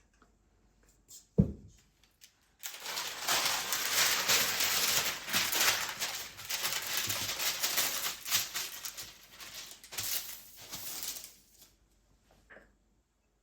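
A single low thump, then about nine seconds of dense crackling, rustling noise full of small clicks, like packaging or other dry material being handled.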